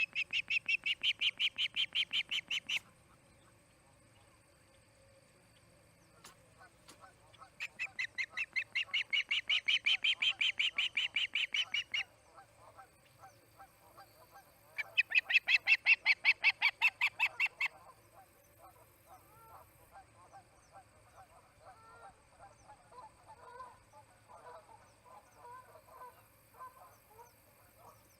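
Ospreys screaming: three bouts of rapid, evenly repeated high calls, about nine a second, each lasting three to four seconds, the second starting about seven seconds in and the third about fifteen. Softer, scattered chirps follow through the second half.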